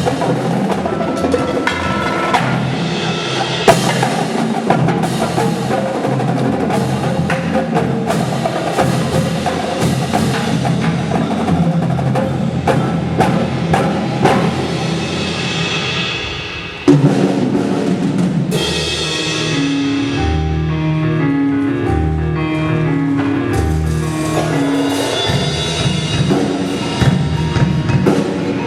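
Indoor drumline and front ensemble playing: battery drums with mallet percussion such as marimba. The music thins briefly about sixteen seconds in, comes back with a sudden loud hit, and continues with a stretch of held low notes before the full drum texture returns.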